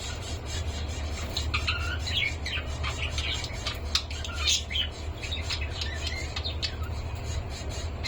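Pet cockatiels chirping and squawking, many short calls overlapping throughout, over a steady low hum.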